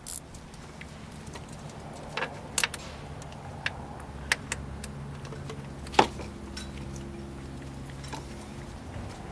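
Scattered light metallic clicks and taps of a hand tool being fitted to the 10 mm bolt of the camshaft sensor on a Chevy 4.2 engine, the loudest click about six seconds in. A low steady hum runs underneath.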